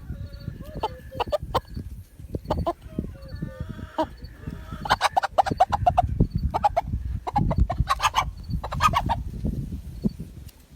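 Chicken clucking and squawking, with a dense run of sharp calls in the second half, over a low rumble.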